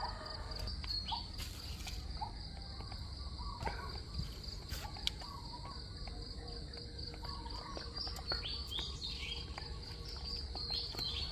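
Night insect chorus: crickets trilling steadily on one high note, with scattered short chirping calls over a low rumble.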